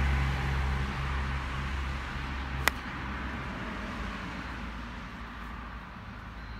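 A hickory-shafted, wooden-headed golf club striking a golf ball off the tee: one sharp crack about two and a half seconds in. It sounds over a low drone of road traffic that fades away.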